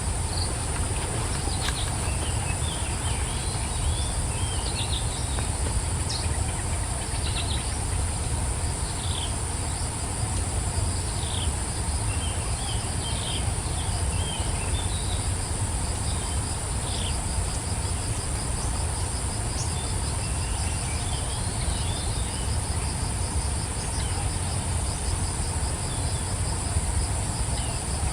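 Steady high-pitched insect drone with scattered short bird chirps, and a fast pulsing insect trill joining in the second half, over a low steady rumble.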